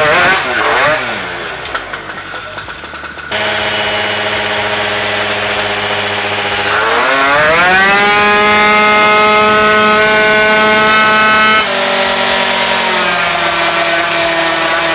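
Twin-cylinder 188 cc racing scooter engine running on a roller dyno: revved unevenly at first, then settling into a steady run. A few seconds later it climbs in pitch under full throttle and holds high, steady revs for about four seconds during the dyno pull, then drops suddenly as the throttle is shut and winds down.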